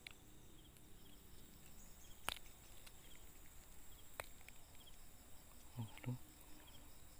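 Quiet outdoor background with two sharp clicks, about two and four seconds in, and a couple of soft bumps near the end: handling noise from a hand holding things close to the phone camera.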